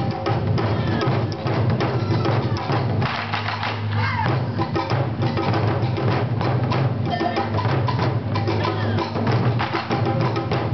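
Japanese taiko ensemble playing: barrel-shaped taiko drums on slanted stands struck with sticks in a fast, dense, driving rhythm, with deep booming drumheads under sharp stick strikes.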